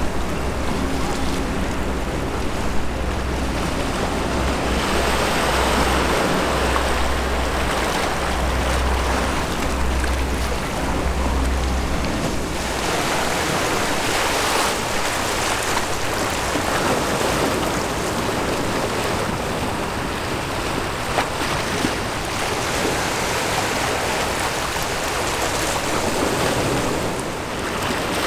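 Small waves breaking and washing onto the shore, surging every few seconds. A low wind rumble on the microphone runs under the first half and stops about halfway through.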